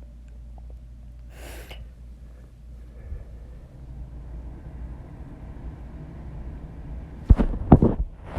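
A single short breath about a second and a half in, over a steady low rumble from a microphone held close to the body. Near the end come a few loud thumps and rubs, like the microphone being bumped or handled.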